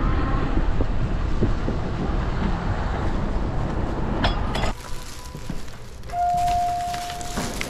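Rushing wind and road noise on the camera's microphone while riding an e-bike, a dense low rumble. About two-thirds of the way in it cuts off abruptly to quieter background noise, and near the end a single steady beep sounds for about a second and a half.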